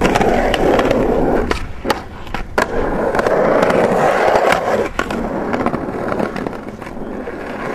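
Skateboard wheels rolling on paved concrete, loud in two long stretches and fainter near the end, with a few sharp clacks of the board on the ground in between.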